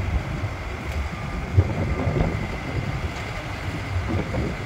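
Low, steady rumble of heavy diesel equipment idling, with wind buffeting the microphone.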